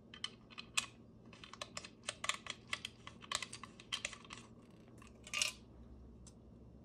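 Quick, irregular small metal clicks and rattles from the brass spout of an antique black powder flask being turned and worked by hand, then a short scrape about five seconds in.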